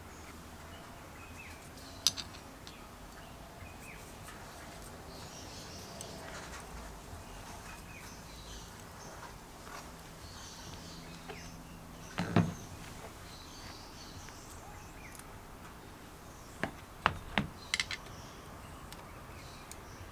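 A few sharp knocks or clicks: one about two seconds in, a couple near the middle and a quick cluster near the end, over a steady background hiss with faint chirps.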